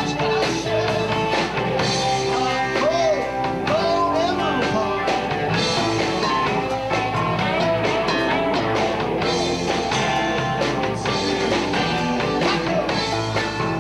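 Live rock band playing: electric guitar, bass, drums and keyboard together, with a man singing at the microphone.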